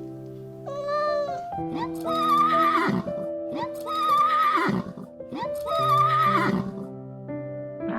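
Horse neighing three times, each a long quavering whinny that falls in pitch at the end, over soft background music. A shorter meow-like call comes about a second in.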